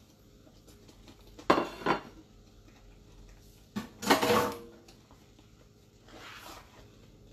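Kitchen dishes clattering as a plate is set down on the counter: two sharp knocks about a second and a half in, then a louder clatter with a short ring near four seconds. Near the end, a softer scrape of a spoon scooping meat sauce in a pan.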